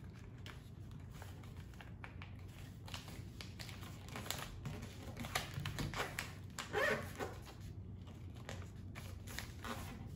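Sheets of paper being folded and creased by hand on a tabletop: scattered soft rustles, crinkles and light taps.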